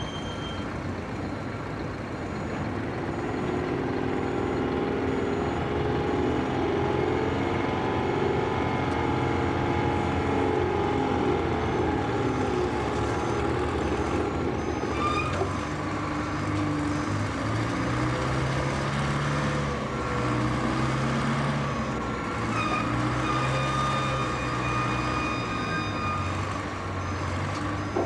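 Heavy construction machinery running steadily, an engine with shifting whining tones over it. No distinct hammer blows stand out.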